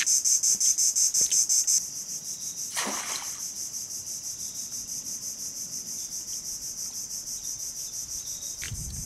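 Steady, rapidly pulsing high-pitched chorus of insects, louder for the first two seconds and softer after. About three seconds in, a short splash as the baited crab trap lands in the water.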